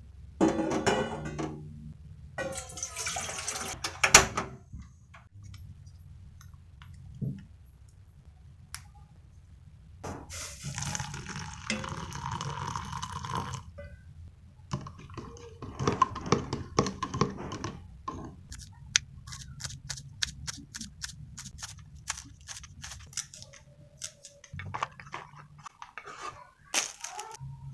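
Washing up at a kitchen sink: water from a tap splashing and dripping in several separate bursts, with clinks and knocks of dishes and pans. A run of quick, regular knocks comes about two-thirds of the way through.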